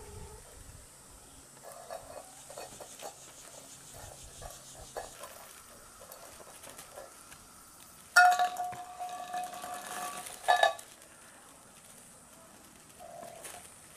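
Rustling and light scratching of a fabric cat play tunnel as cats crawl in and out of it. About eight seconds in, a louder sound with a steady high tone lasts about two and a half seconds and ends in a sharp burst.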